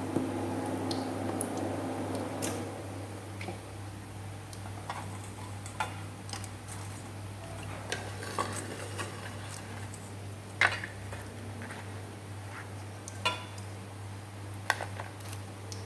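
Kitchen utensils clinking and tapping against a pan and dishes: scattered sharp clicks, a few louder knocks, as freshly fried battered banana blossom is lifted out and set onto a plate. A low steady hum lies underneath.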